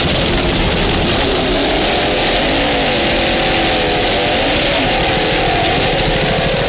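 Supercat-class offshore racing catamaran's engines running at high speed, their pitch wavering up and down, over a steady rushing noise.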